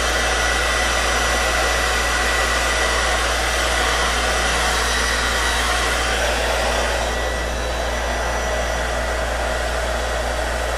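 Electric heat gun blowing steadily as it warms vinyl wrap so the vinyl will stretch, with a faint high whine over the rush of air. About seven seconds in the sound drops slightly and the whine fades.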